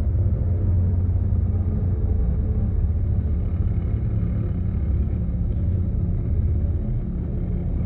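Ambient drone music: a steady, dense low drone of sustained tones, weighted toward the low end, easing slightly near the end.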